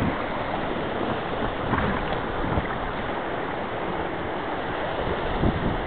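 Steady rush of river water around an inflatable raft, with wind buffeting the microphone.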